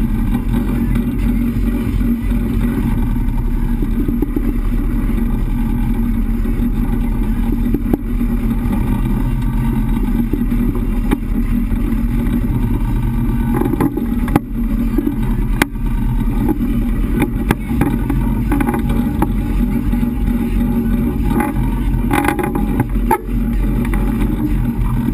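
A sport-fishing boat's engine running steadily under way, a constant low drone mixed with the rushing wash of the boat's wake. A few sharp knocks sound around the middle and again near the end.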